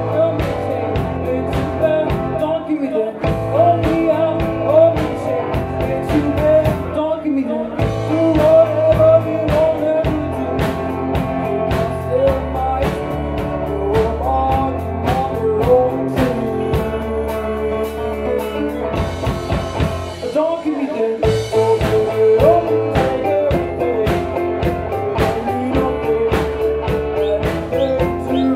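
Live band playing a song: a woman singing over electric guitar, keyboard and a steady drum beat.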